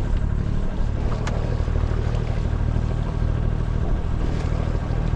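A sailing yacht's inboard Volvo Penta diesel engine running steadily at cruising revs under way, with wash and wind noise, and a single short click about a second in.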